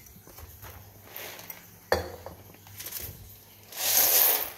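Roasted coffee beans poured and sliding onto a woven bamboo tray, a dry rushing rattle that is loudest near the end, with a sharp knock about two seconds in. The beans are being tipped out so their roast chaff can be winnowed off.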